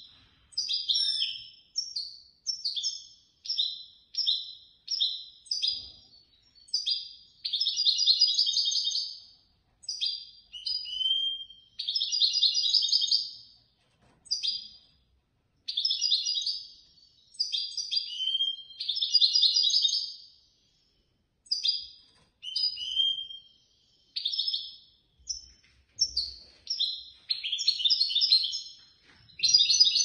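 European goldfinch singing: a continuous string of high twittering phrases, some short and clipped, others longer buzzy trills of up to about two seconds, with brief pauses between them.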